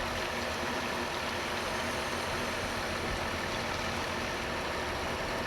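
Heavy engine running steadily at a constant speed, with no change in pitch or level.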